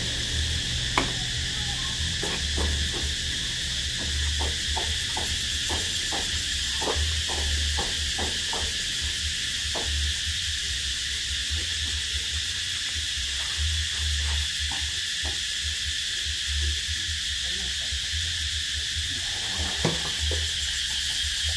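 Steady high-pitched drone of insects, under an uneven low rumble and scattered light clicks and knocks. A sharper knock comes about a second in and another near the end.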